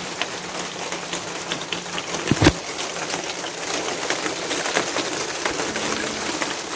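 Water pattering on tomato leaves and straw mulch, a steady patter of many small drops, with a single knock about two and a half seconds in.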